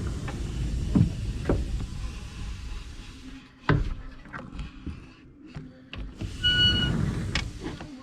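Large sliding pocket door panel rolling along its track, a low rumble broken by sharp knocks, then a loud knock a little under four seconds in. A second rolling rumble a little after six seconds carries a brief thin squeal.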